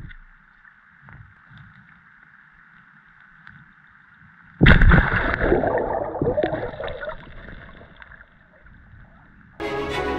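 Water heard through an underwater camera: a faint steady hiss, then about halfway a sudden loud rush of water and gurgling that fades over about three seconds.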